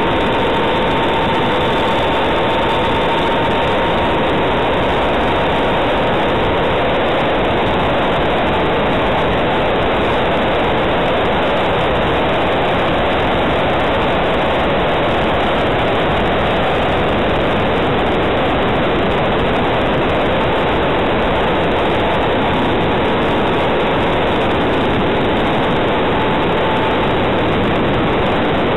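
Steady rushing of airflow and motor noise on a model plane's onboard camera in flight, with a faint whine that fades out after several seconds and returns later.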